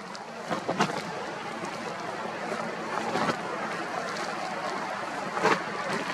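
Strong wind blowing across the camera's microphone: a steady rush with a few sharper buffets about one, three and five and a half seconds in.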